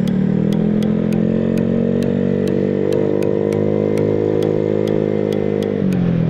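Motorcycle engine running steadily on the move. Its pitch climbs a little in the first second, holds, then drops near the end as the throttle eases.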